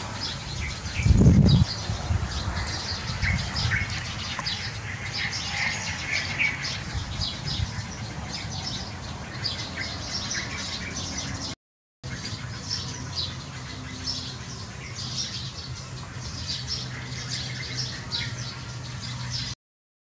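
A flock of sparrows, likely Eurasian tree sparrows, chirping steadily at a dusk roost, many short overlapping chirps. About a second in there is a loud low thump.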